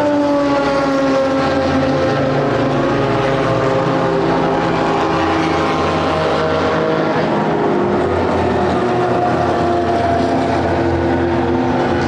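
Engine drone with several tones at once, its pitch sinking slowly over many seconds.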